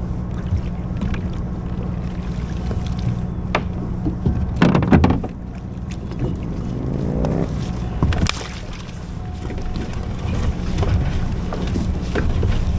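A small electric motor hums steadily aboard a kayak, with a loud splash or clatter about five seconds in, a short rising whine near seven seconds, and scattered knocks of gear.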